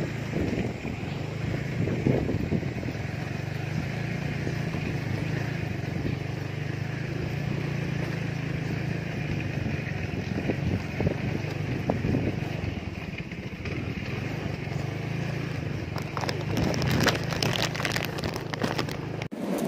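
Motorcycle engine running steadily at low speed over a broken dirt track, with knocks and rattles from the bumps that come thick near the end.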